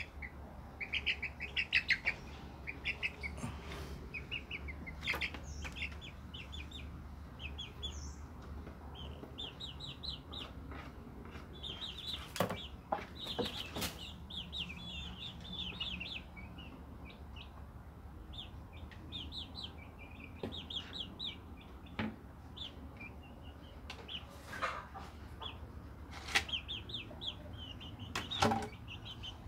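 Young chickens peeping and trilling in short, rapid, high call series over and over, with a few sharp knocks as the birds move about on a wooden floor, over a low steady hum.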